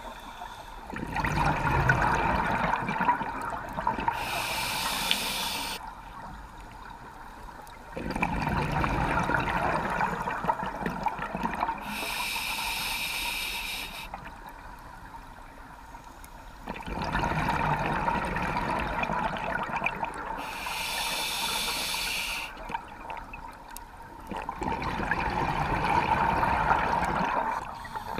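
Scuba diver breathing through a regulator underwater. Each breath in gives a short hiss, and each breath out a longer, louder rush of bubbles. The cycle repeats about every eight seconds: four exhalations and three inhalations.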